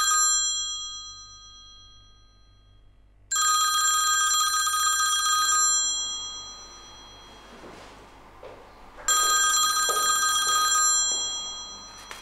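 A mobile phone ringing with a trilling, old-style bell ringtone: three rings of about two seconds each, a few seconds apart, the first already sounding at the start.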